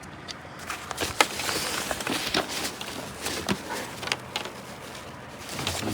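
Small parts of a trolley-bag combination lock being handled: a string of sharp clicks and light knocks with some rustling, starting about a second in.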